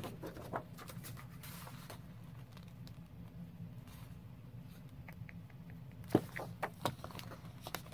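Paper being handled and cut to size: quiet scratchy rustling, then a quick run of sharp clicks near the end, over a low steady hum.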